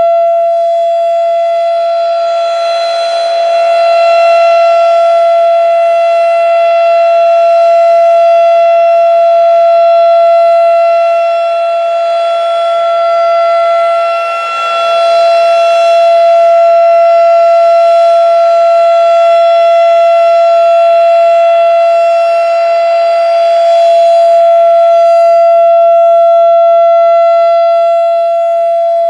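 Federal Signal RSH-10 Thunderbeam three-phase outdoor warning siren sounding its monthly test on one steady-pitched tone. The sound swells and fades about every ten seconds as the rotating siren head turns past.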